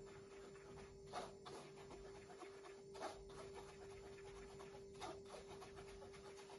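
Faint, soft scraping of a metal spoon working flour through a plastic mesh sieve, a handful of short strokes a second or two apart, over a faint steady hum.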